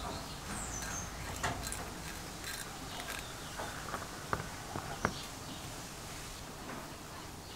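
Light clicks and taps of a brass valve block being handled and fitted onto a restored iron burner body: five or six sharp clicks, the loudest just after the middle.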